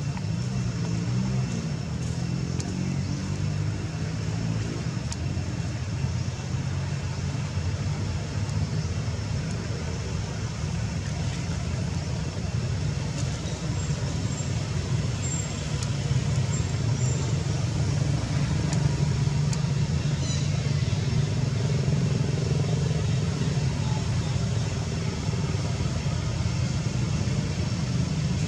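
A steady low rumble like motor-vehicle traffic, growing louder about halfway through.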